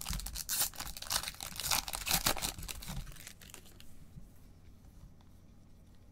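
The foil wrapper of a Panini Mosaic baseball card pack being torn open and crinkled by gloved hands, a dense crackling rustle for about three seconds. After that it dies down to the faint sound of the cards being handled.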